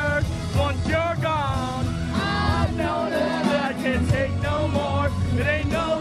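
Live pop-rock band music with a lead vocal, played over a concert sound system.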